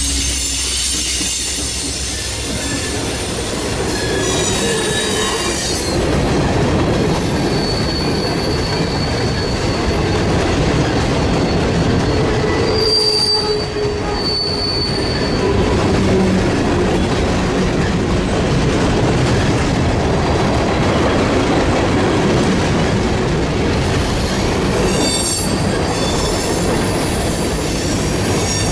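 Norfolk Southern mixed freight train's cars rolling past at close range: a steady rumble of wheels on rail, with brief high-pitched wheel squeals now and then.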